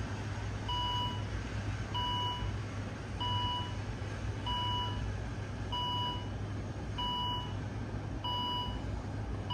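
A car's electronic warning chime beeping over and over, one short beep about every 1.2 seconds, over a steady low hum.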